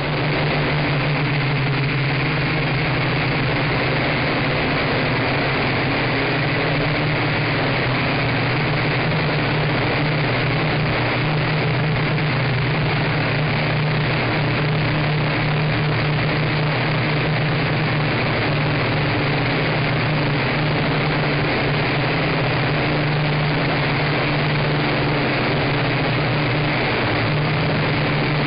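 Nine Eagles MOLA M24 quadcopter's motors and propellers buzzing steadily in flight, heard up close from its own onboard camera. The hum wavers a little in pitch and level as it manoeuvres.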